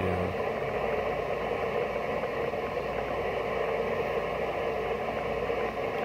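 Steady receiver hiss from a Yaesu FT-991A transceiver's speaker, tuned to 14.074 MHz in USB, with little above about 3 kHz.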